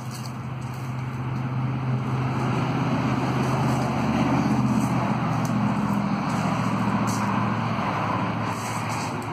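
A motor vehicle driving past, its engine and tyre noise swelling over the first few seconds, peaking around the middle and fading toward the end.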